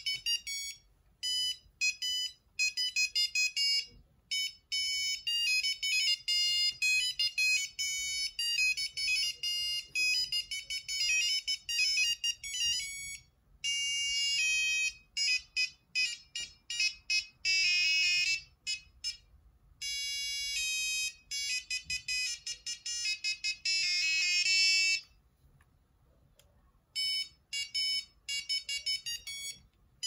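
Sony CMD-Z5 mobile phone playing its built-in ringtones through its small speaker: fast single-note beeping melodies, one tune after another, with a short pause a few seconds before the end as the next tune begins.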